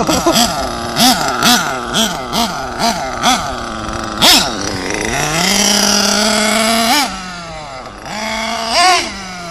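Dr. Speed .21 nitro engine of an LRP S8 BXR Evo 1/8 buggy, revved in quick throttle blips about twice a second for the first four seconds. It then holds a steady pitch for about a second and a half, rises sharply and drops back, with one more rev near the end.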